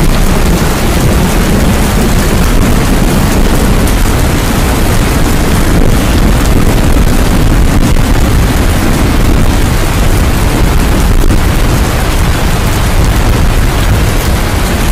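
Heavy tropical downpour: a loud, steady rush of rain with a deep rumble underneath.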